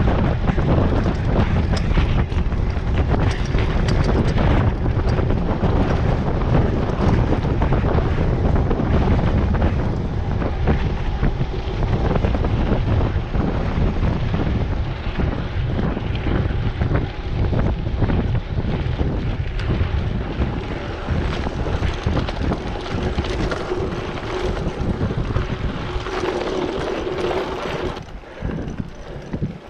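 Wind buffeting a bike-mounted camera's microphone while a mountain bike rides down a dirt road, with the tyres rumbling and clattering over the rough surface.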